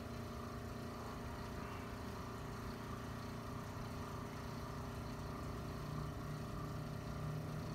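A steady machine hum: a constant low drone that holds level without a break.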